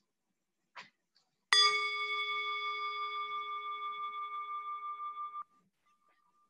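Metal singing bowl struck once with a striker about a second and a half in, ringing with several tones together and a slow wavering pulse for about four seconds, then cutting off abruptly, leaving a faint single tone. It is struck to open a moment of silence.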